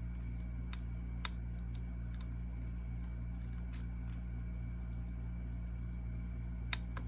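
Scattered faint metallic clicks from picking an American Lock 1100 padlock, the pick and tension wrench working its pins, over a steady low hum.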